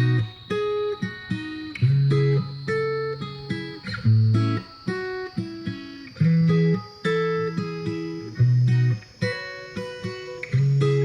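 Background music: an instrumental passage of a pop song, acoustic guitar picked in a steady rhythm over low bass notes, with no singing.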